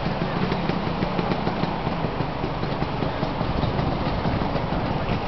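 Motor scooter engine idling steadily.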